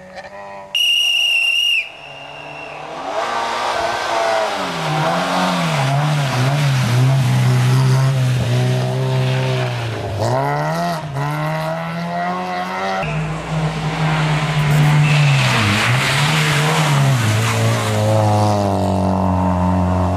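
Honda rally car engine revving hard, its pitch climbing and dropping again and again with gear changes and lifts, over rushing tyre noise. About a second in comes a loud, high, whistle-like tone that lasts about a second.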